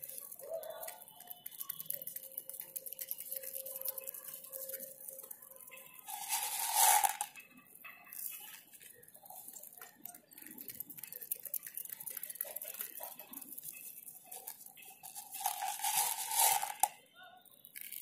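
Rock pigeons pecking small green seeds off a concrete floor close to the microphone: a steady run of quick light taps and crunches. Two louder, noisier bursts stand out, about seven and sixteen seconds in.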